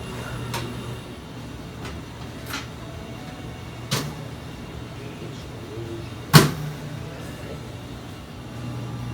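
A few short sharp knocks and clicks over a steady low hum, the loudest knock about six seconds in.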